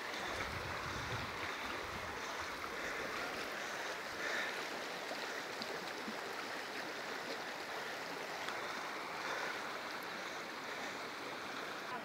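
Running water from a mountain stream: a steady, even rushing.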